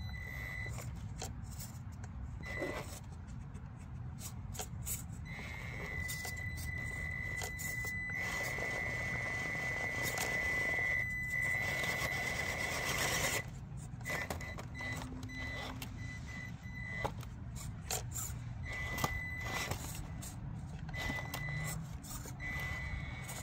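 Electric motor and drivetrain of a Traxxas TRX-4M mini crawler fitted with underdrive gears, whining at one steady high pitch as it crawls over rocks. The whine starts and stops with the throttle, with one long run through the middle that gets louder and busier for a few seconds before cutting off. Scattered clicks and knocks of the tires and chassis on rock run through it.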